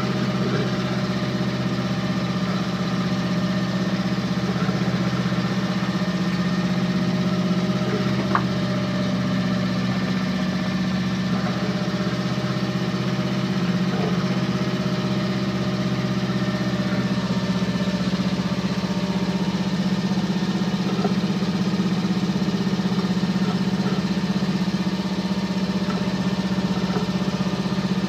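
A yacht's inboard engine heard inside the cabin, running at a steady pitch, with water rushing along the hull. There is one light click about eight seconds in.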